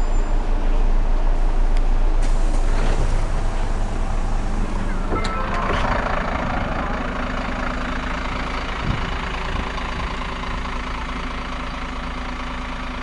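Irisbus Citelis city bus idling at a stop with a steady engine hum, heard first inside the cabin and then from beside the bus, growing a little quieter. A short burst of noise comes about five seconds in.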